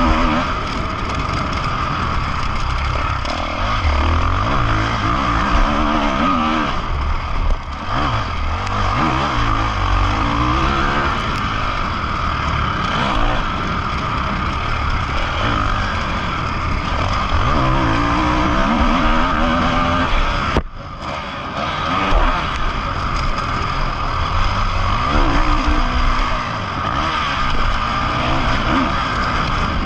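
Ducati Desmo 450 single-cylinder four-stroke motocross engine under hard riding, its pitch repeatedly climbing and falling as the rider opens and shuts the throttle through the gears. About two-thirds of the way through, the sound drops away briefly before the engine picks up again.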